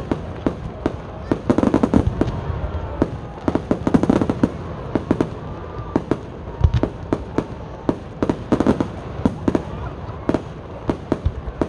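Fireworks display going off: a fast run of sharp bangs, with dense bursts of crackling several times and one deep boom about two-thirds of the way through.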